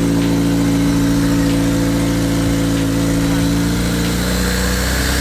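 Honda K-series four-cylinder engine running at idle on its first start-up, with no exhaust fitted, so it is heard straight out of the open header. It runs steadily, its pitch shifting slightly about four seconds in.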